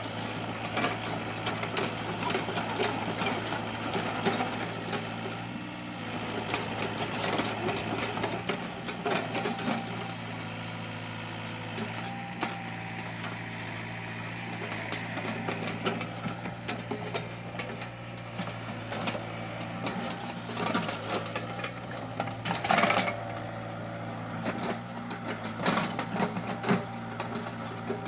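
Mini excavator's diesel engine running steadily under work, with irregular clatter and knocks from digging throughout. Two louder sharp knocks come about 23 seconds in and near the end.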